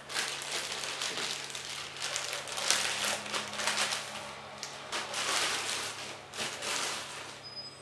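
Clear plastic wrapping crinkling and rustling as a lens is handled and pulled out of it, coming and going in uneven surges and stopping shortly before the end.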